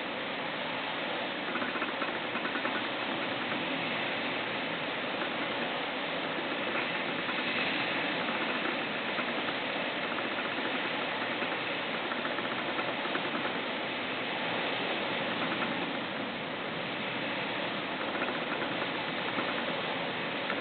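Typhoon wind and rain making a steady, even noise with no break.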